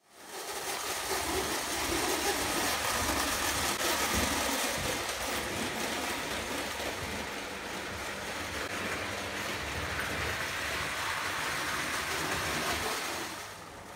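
Prewar Lionel O gauge toy train running on three-rail tinplate track: a steady whirring rattle of the electric motor and the metal wheels, which drops a little near the end.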